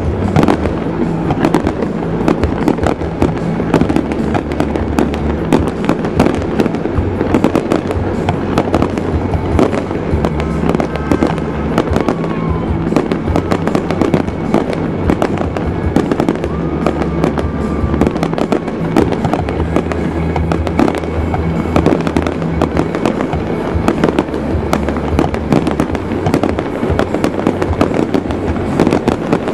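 Fireworks going off nonstop, a dense run of bangs and crackling, over music with a heavy bass line.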